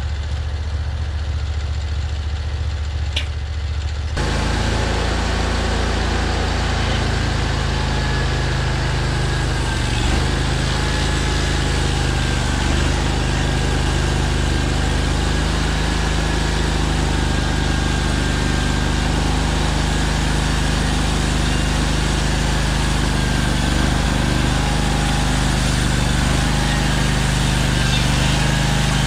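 Hud-Son Oscar 336 portable bandsaw mill's small gas engine idling, then about four seconds in throttling up and running steadily under load as the band blade cuts along the length of a log.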